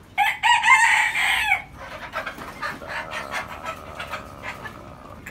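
Onagadori rooster crowing: a loud crow of about a second and a half, followed by a fainter, drawn-out held note lasting about three seconds.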